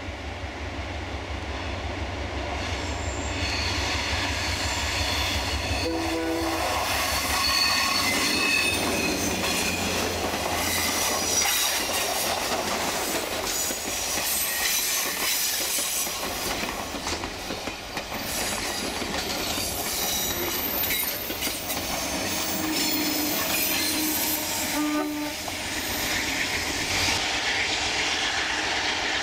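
ALCO diesel locomotives working hard under load with a passenger train, their engine throb growing louder as they approach. As the passenger cars pass on the curve, wheel flanges squeal and the wheels click over the rail joints.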